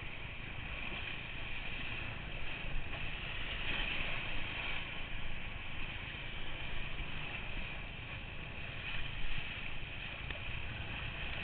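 Steady rush of water past a windsurf board moving at speed through chop, with wind rumbling on the microphone.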